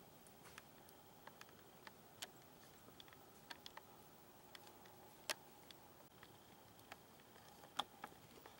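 Near silence broken by faint, irregular small clicks and ticks, about two a second, with two louder ones about five and about eight seconds in.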